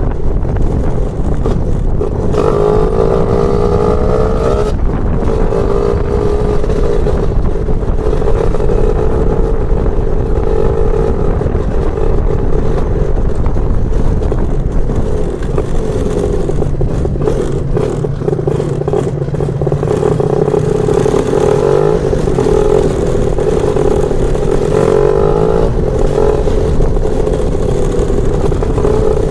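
Lambretta scooter's BFA 325-type two-stroke engine running under way, its note rising and falling as the throttle is worked, with brief rises in revs a few seconds in and again near the end.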